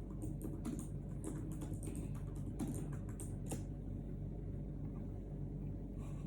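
Quick irregular clicks, several a second, stopping about three and a half seconds in, over a steady low hum.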